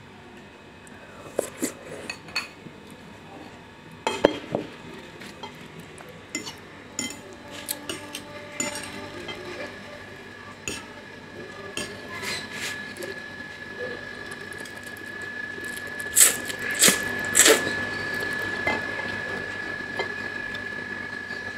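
A metal spoon clinking and scraping against a bowl of noodles. Near the end come several loud noodle slurps.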